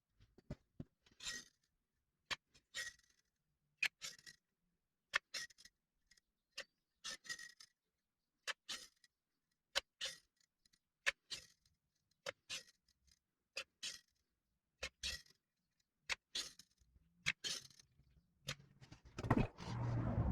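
Hand ratchet tightening bolts during engine assembly: a sharp click and a short ratcheting rattle about every one and a half seconds, stroke after stroke. Near the end a louder scraping clatter.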